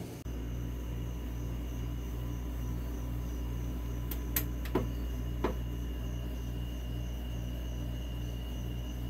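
A steady low mechanical hum with an even pulsing in it, and three short sharp clicks about halfway through.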